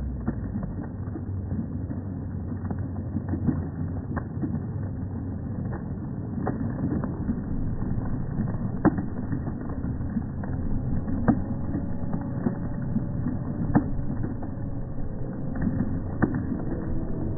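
Stadium crowd noise slowed down and pitched low by slow-motion playback, heard as a dull, muffled rumble. Scattered low knocks of hand claps, also slowed, sound through it.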